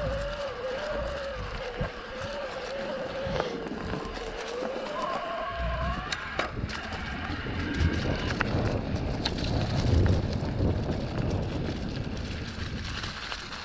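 Shimano mid-drive e-bike motor whining under pedalling, its pitch wavering up and down with cadence, over the rolling rumble and rattle of mountain-bike tyres on a leafy dirt trail. About six seconds in the whine drops away after a sharp knock, leaving tyre rumble, low thumps and chain and frame rattle.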